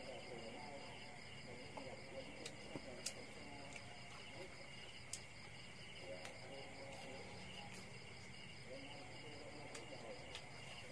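Crickets and other night insects chirping in a steady, faint chorus, with a few soft clicks over it.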